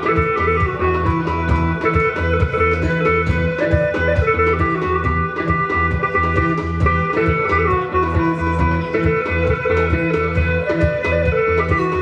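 Live instrumental music: a steady low drone under a quick, regular hand-drum beat, with plucked strings and a sustained melody line that moves between held notes.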